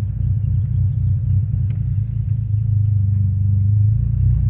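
Saab 9-3's engine running at idle: a steady low rumble with a fine, even pulse.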